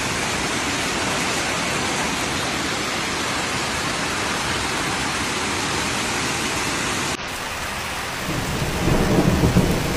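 Heavy hailstorm: a dense, steady hiss of hail and rain pelting down. About seven seconds in it cuts to a deeper rushing rumble that grows louder near the end.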